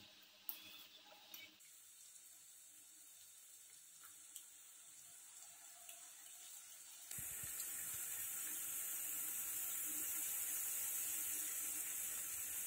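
Eggplant and carrot fritters (bakwan terong) frying in hot oil in a pan: a steady sizzle that is faint at first and gets much louder about seven seconds in. In the first second or so, a few light clicks of chopsticks stirring the batter in a steel bowl.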